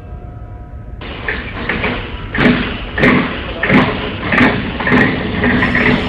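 Repeated mechanical knocks, one about every two-thirds of a second, over a steady clattering noise. Before that, a ringing musical tone stops about a second in.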